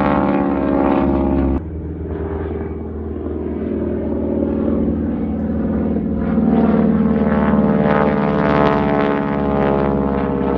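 Propeller-driven warbird aircraft flying over, a steady drone of layered engine tones. The level drops suddenly about a second and a half in, then builds to its loudest around seven to nine seconds in before easing slightly.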